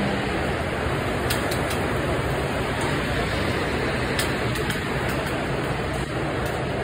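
Steady rushing noise of a commercial kitchen's exhaust hood and equipment running, with a low hum underneath and a few faint clinks.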